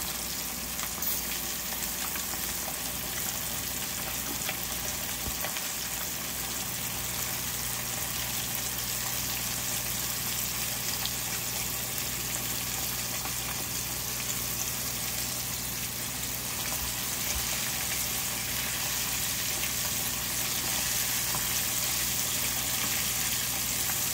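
Floured arakabu (marbled rockfish) pieces deep-frying in hot oil: a steady sizzle with fine crackling, growing a little louder near the end.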